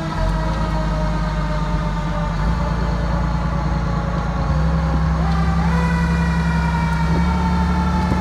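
Fire truck siren sliding slowly down in pitch, then rising again about five seconds in, over the truck's engine running underneath, which gets louder partway through.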